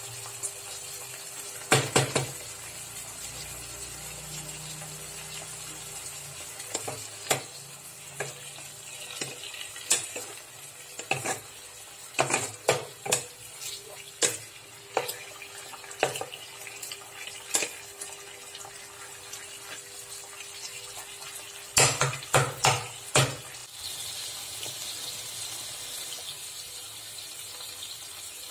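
Chicken pieces sizzling in a frying pan while a wooden spatula stirs them, clacking and scraping against the pan; the knocks come in clusters, loudest about two seconds in and again about twenty-two seconds in. Near the end the clacks stop and a steadier hiss takes over.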